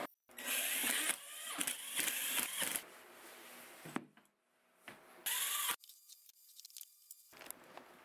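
Hands handling a wooden router-lift box: scraping and light knocks of wood being moved and set down, in a few short pieces with near silence between.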